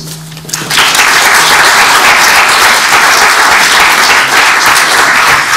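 Audience applauding, starting about a second in and keeping up steadily.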